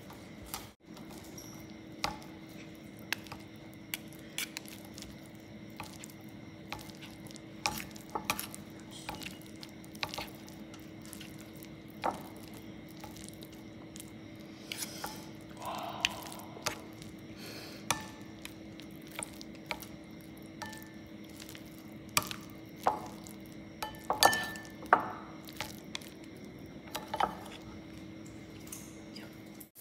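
Metal spoon and wooden chopsticks clicking and scraping against a ceramic bowl while stirring instant noodles into thick black bean sauce, with soft wet sounds from the sauced noodles. The clicks are irregular, about one a second, and come thicker near the end.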